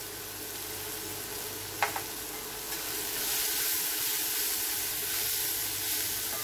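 Chopped onions sizzling in oil in an iron kadai as chilli and turmeric powder are stirred in with a steel slotted spatula. There is one sharp metal clink about two seconds in, and the sizzle grows louder from about three seconds in as the stirring gets going.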